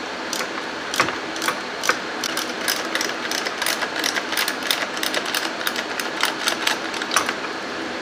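Sharp metallic clicks of a ratchet wrench as bolts are run down in the engine bay, a few clicks a second at an irregular pace, stopping near the end.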